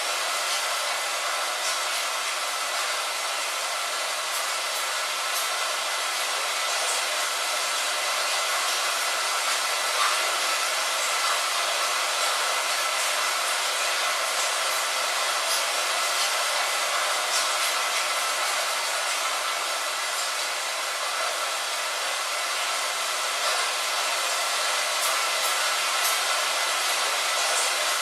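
Steady rain on a window: an even, thin hiss with no deep rumble and scattered faint ticks of single drops.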